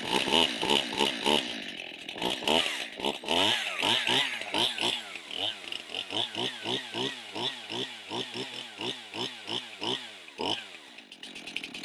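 Stihl MS271 Farm Boss two-stroke chainsaw, freshly started on half choke, revving up and down in quick throttle blips about twice a second with no wood being cut. It settles to a steady idle near the end.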